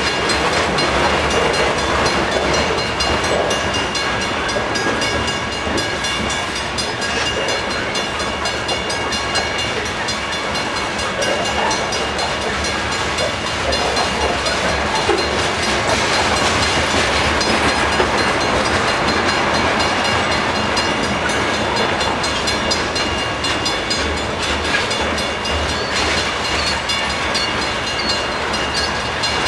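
Loaded freight train of covered hopper cars rolling slowly past: steel wheels on the rails make a continuous, steady rolling rumble, with a few faint steady high-pitched tones over it.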